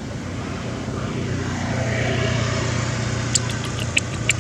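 A motor vehicle's engine passing, its low hum swelling and then easing off. Near the end come several short, sharp high chirps or clicks.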